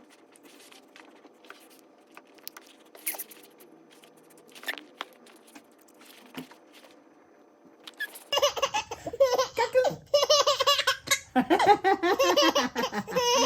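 Five-month-old baby laughing hard in repeated high-pitched bursts, starting about eight seconds in. Before that, only a few faint clicks.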